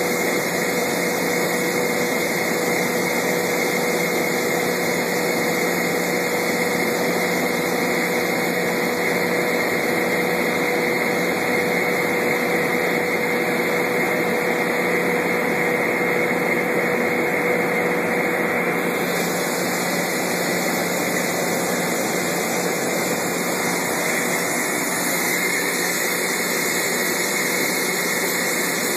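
Kaeser BS 60 50 HP rotary screw air compressor running steadily: an even, constant machine drone with a thin whine. The lower whine fades out about two-thirds of the way through.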